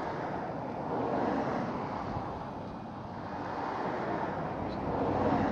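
Outdoor rushing noise that swells about a second in and again near the end, with no clear engine note.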